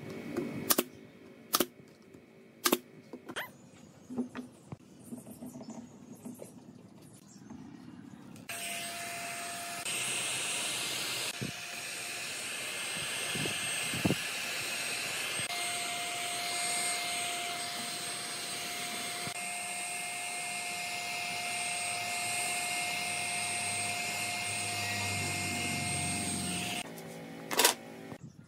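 A nail gun fires several sharp shots in the first few seconds. About eight seconds in, a heat gun starts blowing: a steady rush of hot air with a thin whine from its fan, running for about eighteen seconds while it softens a thin wooden strip for bending, then it cuts off and a single sharp knock follows near the end.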